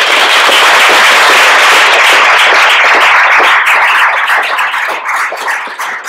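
Audience applauding: a dense clatter of many hands clapping, thinning out into scattered claps over the last second or two.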